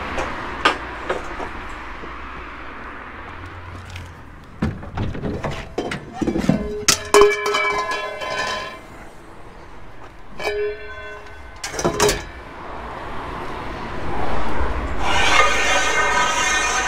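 Pieces of scrap steel knocking and clanking together as they are handled, with several ringing metallic tones that hang on for a second or two each.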